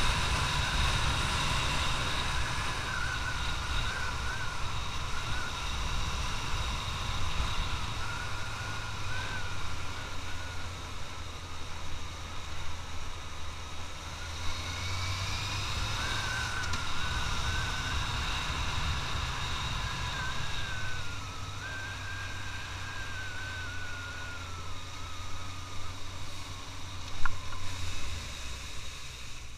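Suzuki GSX650F's inline-four engine running at road speed under way, with wind noise. A high whine wavers up and down throughout, and there is one sharp click near the end.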